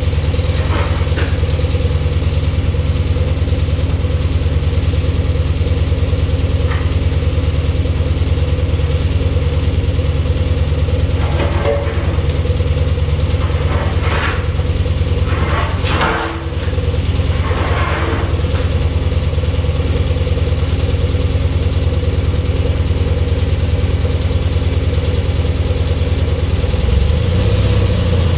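Grove mobile crane's propane-fuelled Onan engine idling steadily. Scrapes and knocks come between about 11 and 18 seconds in as the heavy cast pedestal grinder is rocked across the concrete floor. The engine note shifts near the end.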